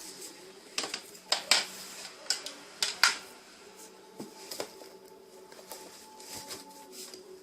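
Handling noise: a quick run of sharp clicks, knocks and rustles in the first three seconds, then a few quieter ticks over a faint steady hum.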